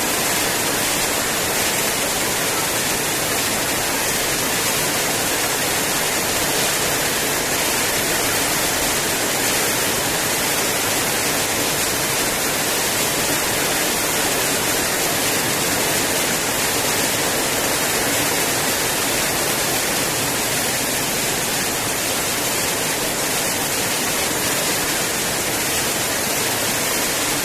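Heavy rain pouring down, a dense, even hiss that holds steady throughout.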